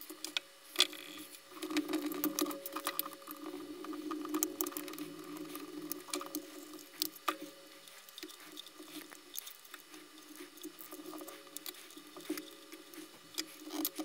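Scattered clicks and rustles of hard plastic being handled as a hot-air brush hairdryer is taken apart: the brush head is worked off and set down, and a screwdriver pries at the plastic housing.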